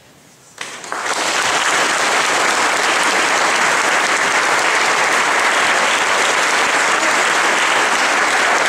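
Audience applauding: the clapping breaks out about half a second in and quickly builds to a steady, dense applause.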